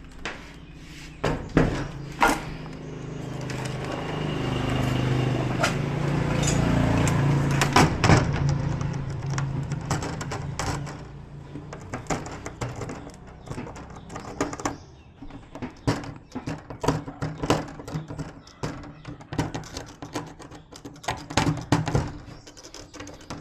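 Repeated clicks and knocks of small parts and tools being handled, with a steady low hum that swells for several seconds in the middle and then fades.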